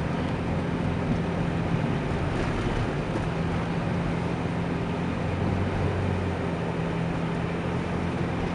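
Car running on the road, heard from inside the cabin: a steady drone of engine hum and tyre noise.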